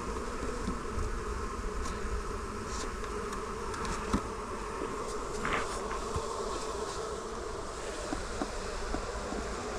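A honey bee colony buzzing steadily from the opened nucleus box, its feeder just removed. There is one light knock about four seconds in.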